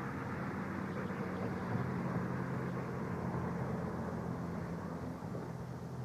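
A steady low mechanical drone, like an engine running, under a constant hiss of background noise.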